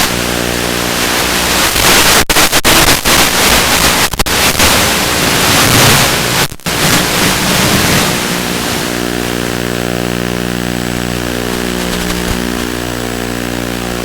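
Small FPV quadcopter's motors and propellers running. For the first half the sound is a rough, noisy rush with a few brief cutouts. After that it settles into a steady, pitched hum.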